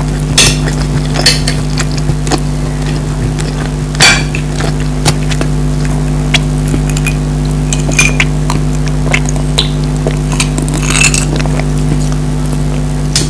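Eating sounds: a metal spoon or fork clicking and clinking against a plate in irregular short strikes, the loudest about four seconds in. Underneath is a steady low hum.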